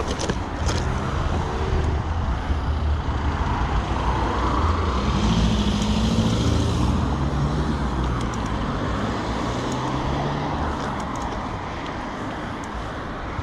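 Road traffic noise: a motor vehicle's engine swells as it passes about five seconds in and fades away, over a steady low rumble.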